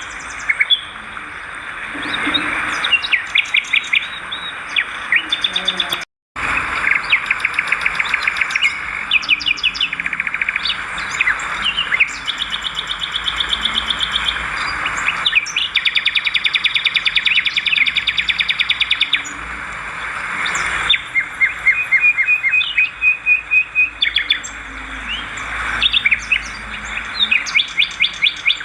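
Swiftlets twittering: rapid trains of high chirps and buzzy trills, repeated in bursts, with a brief cut to silence about six seconds in.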